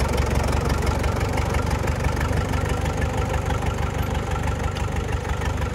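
Tractor's diesel engine running steadily while it drives through deep pond water.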